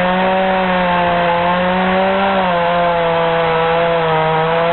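Two-stroke chainsaw running at full throttle, a steady high engine note whose pitch sags slightly about halfway through and again near the end.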